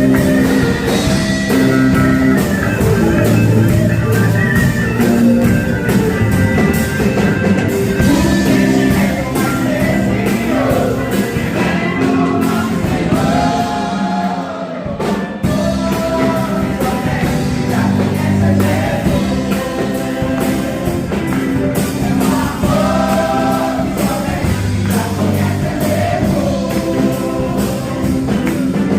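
Gospel worship music: several voices singing together over a backing band with a steady bass line, easing off briefly about halfway through before carrying on.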